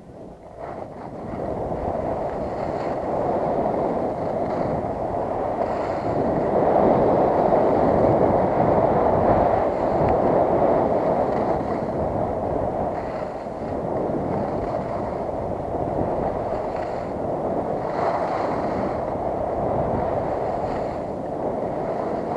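Skis sliding and scraping over chopped-up piste snow, with wind rushing over the microphone at speed; a short lull right at the start, then a steady run that is loudest a few seconds in.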